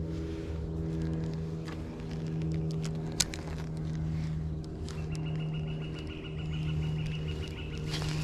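A steady low engine hum with a sharp click a little over three seconds in, and a thin high steady tone over the last few seconds.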